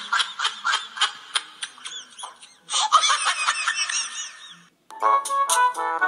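High-pitched laughter in quick repeated bursts, stopping about five seconds in, when instrumental music starts.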